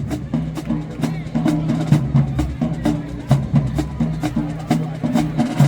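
High school marching band playing: the drumline keeps a quick, steady beat of sharp hits under low, held brass notes.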